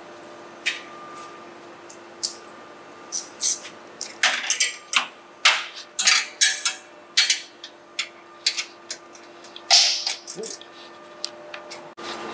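Irregular sharp metallic clicks and short scrapes of a hand tool working a mounting bolt into a steel bracket, spread over about ten seconds, over a faint steady hum.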